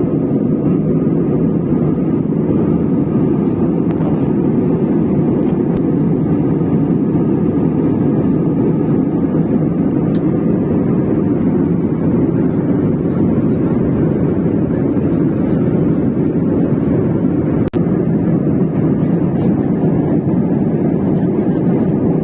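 Steady low cabin noise of a passenger airliner in flight: engine and airflow noise heard from inside the cabin, even and unbroken, with a brief dropout near the end.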